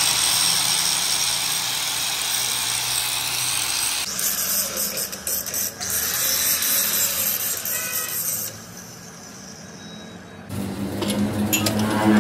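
Handheld angle grinder grinding the metal of a drive shaft yoke clamped in a lathe chuck. The grinding changes character about four seconds in and drops away after about eight seconds.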